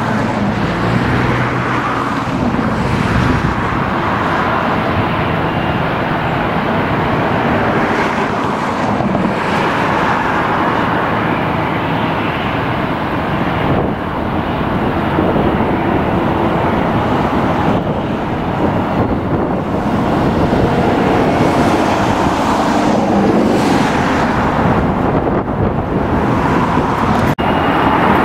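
Loud, steady roar of traffic around the airport, swelling and easing every few seconds without any sharp break.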